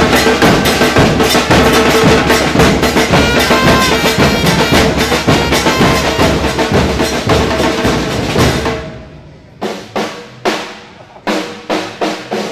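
Supporters' drum band of bass drums and snare drums playing a fast, dense beat. About nine seconds in it drops to single, spaced drum hits that ring out briefly.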